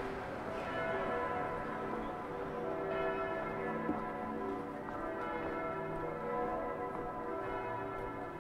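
Church bells pealing, several bells struck one after another with long ringing tones that overlap.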